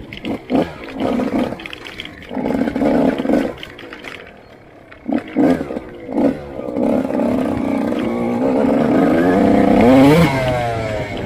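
Motorcycle engine heard on board: several short throttle blips, then a longer pull with the engine pitch climbing steadily to a peak about ten seconds in, then dropping as the throttle is closed or a gear is changed.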